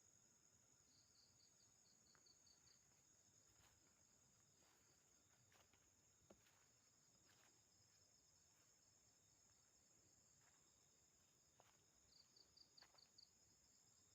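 Faint, steady high-pitched chirring of night crickets and other insects, with two short runs of about seven quick chirps, one about a second in and one near the end, and a few soft clicks.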